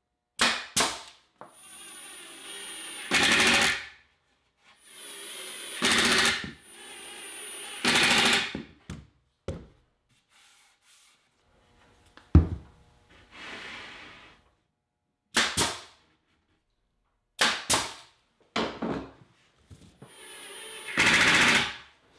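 Cordless impact driver driving screws into a cabinet box, four times: each time the motor runs with a thin whine, then breaks into loud, fast rattling as the impact mechanism engages and the screw seats. A pneumatic brad nailer fires single sharp shots near the start and again several times in the latter half.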